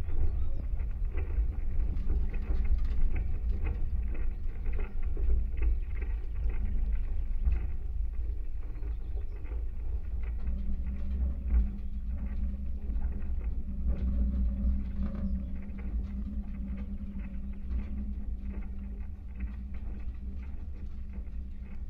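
Vibrations of a wooden maypole picked up by contact microphones: a continuous low rumble full of small crackles and ticks, with a steady low hum coming in about halfway through.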